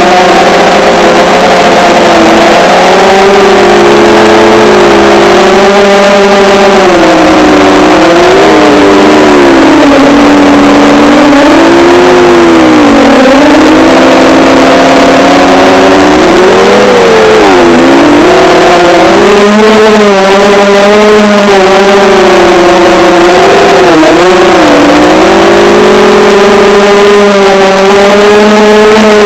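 FPV drone's electric motors and propellers whining loudly and close-up, the pitch constantly swooping up and down as the throttle changes.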